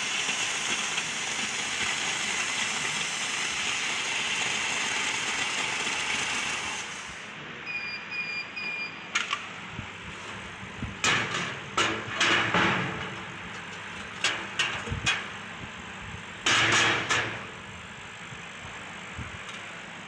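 JETLASER METAL JET 1390 CO2 laser cutter cutting steel with a steady hiss that stops about seven seconds in. Three short beeps follow, then a series of short, sharp bursts of noise.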